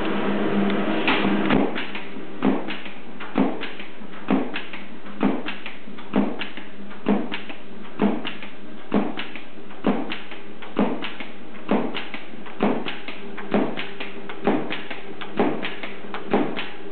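Industrial double-sided tape applicator with conveyor feed running: a steady machine hum with a sharp mechanical click repeating about once a second from about a second in.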